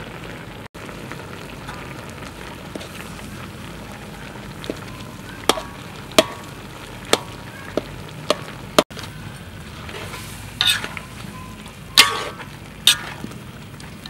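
A stir-fry sizzling in a wok as a metal spatula turns it, with several sharp clinks of the spatula against the wok from about five seconds in.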